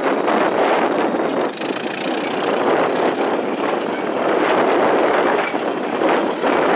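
Caterpillar D7 crawler bulldozer's diesel engine running with a dense, steady clatter. A thin high whine shifts in pitch about two seconds in.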